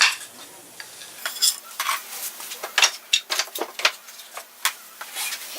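Hammer driving small nails into wooden truss pieces laid on concrete: a quick, irregular run of sharp metallic taps, a dozen or so strikes. The nail points meet the cement and bend over as they come through.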